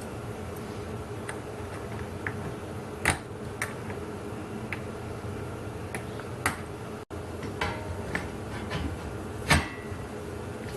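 Steady hum of a diesel space heater running flat out, with scattered sharp clicks and light metal knocks from hand work on the trolley, the loudest about three seconds in and near the end. The sound cuts out for an instant about seven seconds in.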